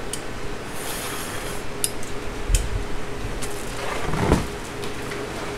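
Metal tongs and a ceramic dish clinking and clattering on a stainless-steel kitchen counter, a handful of sharp clicks spread through, with a louder knock near the end, over a faint steady hum.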